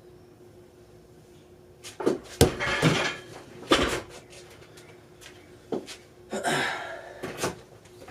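A handful of separate sharp knocks and clatters, as of weightlifting equipment being handled, beginning about two seconds in, with a short scraping rustle near the end. A faint steady hum sits underneath.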